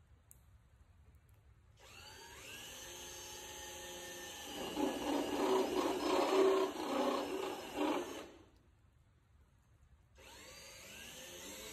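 Cordless drill with a step drill bit cutting the aluminium skin of a Cessna 170A's wing leading edge, rounding the corners of the stall-warning doubler cut-out. The motor spins up about 2 s in, gets louder and rougher as the bit bites into the metal, stops near 8 s, then starts again about 10 s in.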